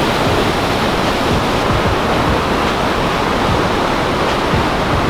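Loud, steady rushing of the Rhine Falls, a large waterfall heard close up.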